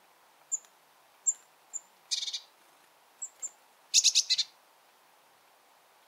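Bearded reedlings calling: a few short, high single calls, then two louder bursts of rapid, ringing calls about two and four seconds in.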